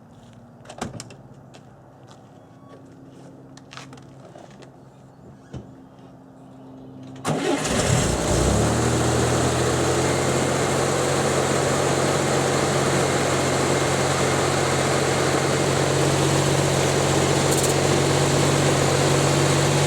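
A few faint clicks, then the 1964 Chevrolet Corvair Spyder's turbocharged air-cooled flat-six engine starts about seven seconds in and settles into a steady idle, its first run after an oil change.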